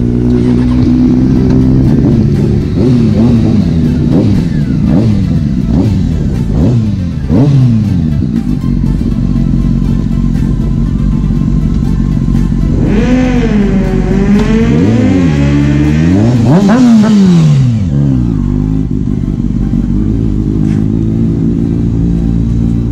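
Motorcycle engines running, with an engine revving up and down again and again during the first several seconds. About 13 seconds in, a sport motorcycle rides close past, its engine rising and falling in pitch over a few seconds.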